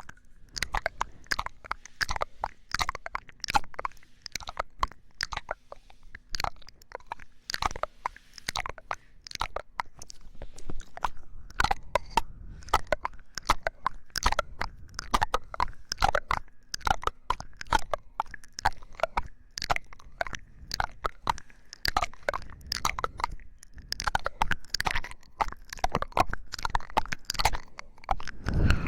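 Popping candy crackling and popping in a mouth held close to the microphone, with wet mouth clicks: a dense, irregular stream of sharp little pops, several a second.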